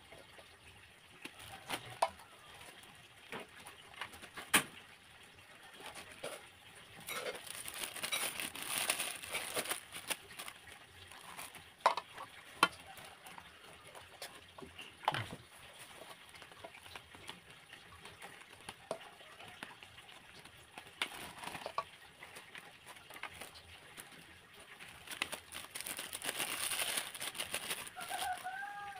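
Scattered clinks and knocks of a spoon against an aluminium pot, with stretches of plastic bag rustling, as food is scooped out and bagged by hand.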